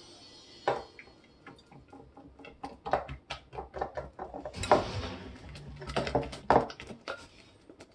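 Glue slime, freshly dosed with activator, being stirred and kneaded by hand in a ceramic mixing bowl: a fast, irregular run of sticky clicks and squelches that grows busier and louder partway through.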